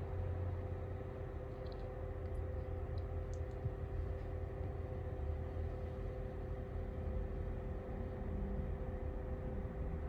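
Lasko CT32791 ceramic tower space heater running: a steady, low fan whir with a constant hum.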